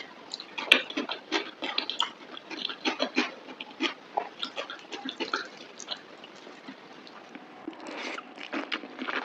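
Chewing and wet lip-smacking of spicy mutton curry and rice: a rapid, irregular string of short smacks and clicks, with one sharper click about a second in.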